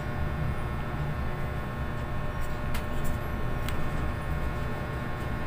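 A steady low hum with a faint steady whine above it and a few faint clicks.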